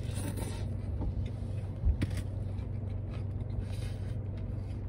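Biting into and chewing a fried shrimp po'boy, with a few soft crunches over the steady low hum of a car cabin.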